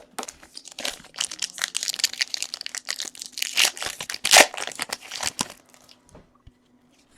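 Trading card pack wrapper being torn open and crumpled: a dense run of crinkling crackles lasting about five and a half seconds, loudest about four seconds in.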